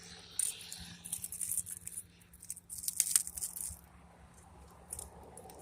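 Broken CRT glass clinking and crunching as shards are worked off a copper deflection yoke, in two spells of rapid small clicks and crackles.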